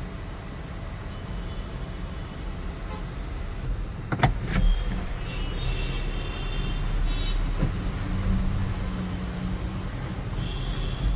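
Toyota Urban Cruiser Hyryder's electric panoramic sunroof sliding open under its motor, over a steady low hum, with two sharp clicks about four seconds in.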